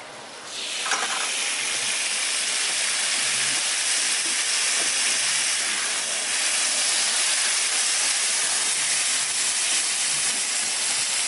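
Sauce sizzling on a hot steel teppanyaki griddle, a loud steady hiss of steam that starts suddenly about half a second in, while a metal spatula spreads it across the plate.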